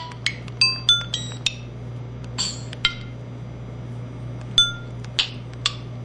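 Samsung SCH-E370 mobile phone sound effects played through its speaker: about a dozen short, clinking blips at different pitches, irregularly spaced.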